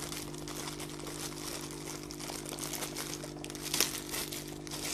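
Thin plastic packaging crinkling as a filter cartridge is unwrapped by hand, with a sharper crackle near the end.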